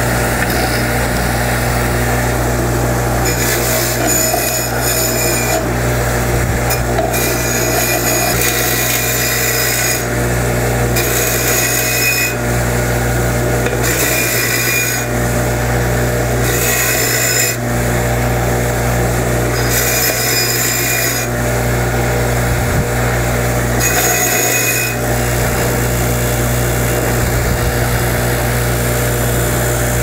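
Bench grinder motor running steadily while a welded steel sprocket is pressed against its wire wheel in about seven scratchy passes of one to two seconds each, brushing off weld spatter.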